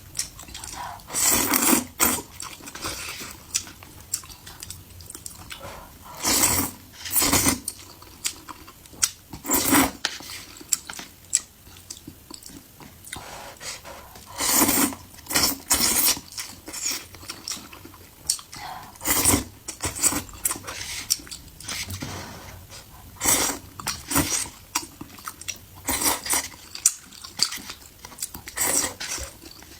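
Close-miked eating: a person chewing and biting food, with irregular loud mouth bursts every second or two.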